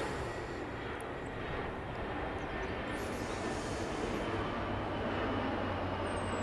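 A steady low mechanical drone, with a deeper hum that grows stronger about four seconds in.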